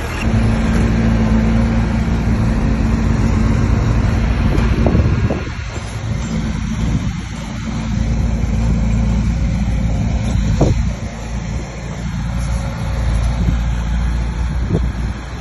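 Bulldozer's diesel engine running under load, its note easing off briefly a couple of times, with a few short knocks.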